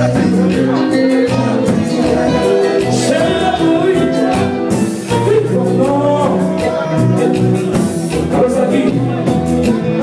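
Haitian kompa band playing live and loud, a singer over keytar and drums with a steady danceable beat.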